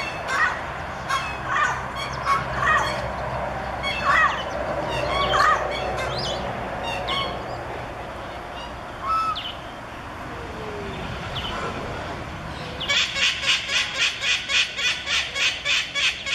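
Mixed calls of waterfowl and other birds around a park pond: many short calls, some rising in pitch. Near the end comes a rapid run of shrill calls, about four a second.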